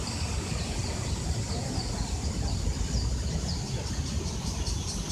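Outdoor ambience under trees: a steady low rumble with faint high bird chirps. Near the end an insect starts a rapid pulsing call, about five pulses a second.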